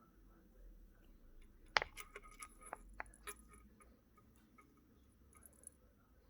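Bubbles of a silicone pop-it fidget toy being pressed with the fingers: a quick run of soft clicks about two seconds in, over faint handling.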